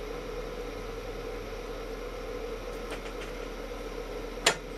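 Steady low hum and hiss, with a few faint handling clicks about three seconds in and one sharp click near the end as an oscilloscope probe's clip is fitted onto a stereo plug.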